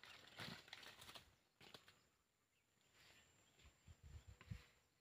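Near silence, with faint, irregular rustling and a few soft thuds about four seconds in.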